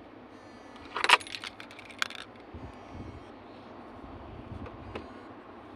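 Car keys jangling as the key is pulled from a Kia's ignition: a sharp metallic clatter about a second in and another near two seconds, then a few light clicks.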